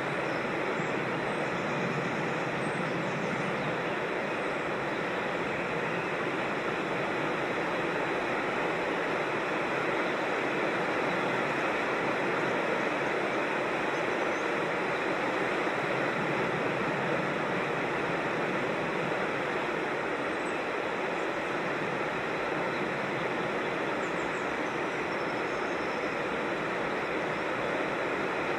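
Steady rushing water of a creek or small waterfall, an even, unbroken hiss.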